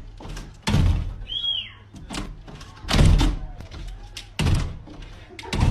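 A series of dull thuds, four in all, spaced a second or two apart, with a short high chirp between the first two.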